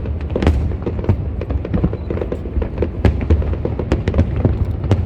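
Aerial fireworks going off in rapid succession: many sharp bangs close together over a continuous low rumble.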